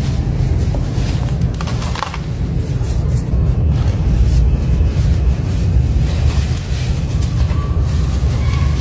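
Hands squeezing and crumbling packed reddish sand in a plastic bucket: soft crunches and scattered crackles over a steady low rumble.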